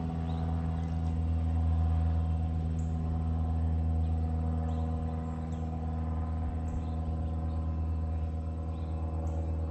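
Small single-engine propeller plane flying overhead, a steady drone with a low hum. It swells slightly about two seconds in, then eases.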